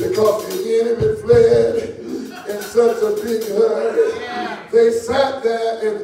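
A preacher delivering his sermon in a sung, chanted cadence, phrases held on one steady pitch, with church music playing behind him.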